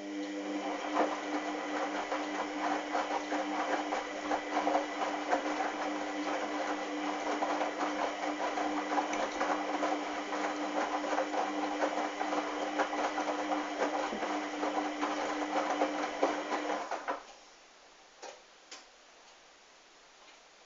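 Hoover washing machine running its motor mid-wash: a steady whine with dense rapid clicking, which stops abruptly about 17 seconds in, leaving only a few faint ticks.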